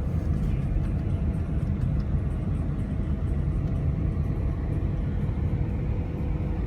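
Steady low rumble of a vehicle driving, with a faint steady hum above it.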